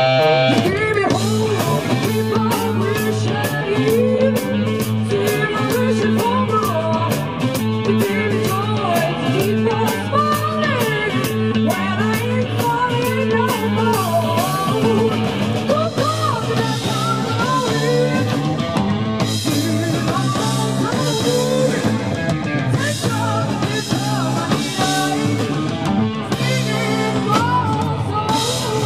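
Live psychedelic rock band playing: electric guitar, bass and drum kit with a steady beat, and a woman singing.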